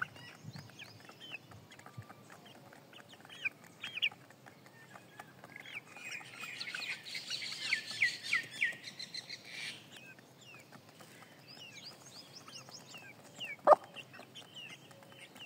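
Young chickens peeping as they peck and feed with a hen: many short falling chirps, busiest about six to nine seconds in. One short, sharp sound near the end is the loudest thing.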